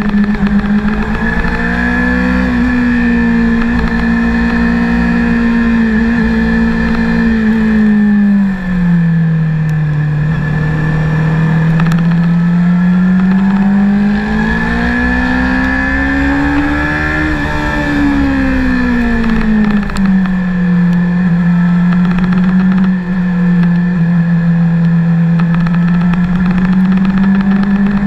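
Honda CBR600RR inline-four engine running under load, heard from on board while riding. Its pitch drops about a third of the way in, climbs steadily to a peak a little past halfway, then falls again and holds steady to the end, with two brief dips in loudness where the throttle eases.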